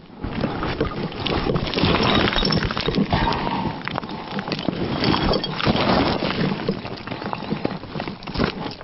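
Boots scrambling and slipping over loose stones on a steep scree slope: a continuous, irregular crunching and clattering of rocks, with wind buffeting the microphone.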